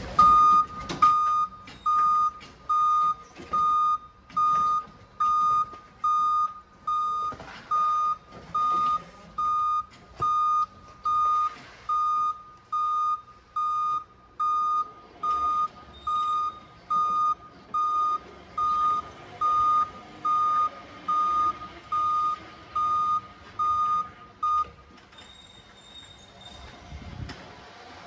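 Forklift reversing alarm beeping steadily, one beep about every three-quarters of a second, as the forklift backs up; the beeping stops about three and a half seconds before the end. A sharp knock sounds about a second in.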